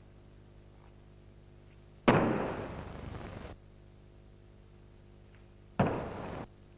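Two sudden, sharp, noisy sounds from a karateka's kata movements. The first comes about two seconds in and fades over more than a second; the second, shorter one comes near the end. Both cut off abruptly over a steady low hum.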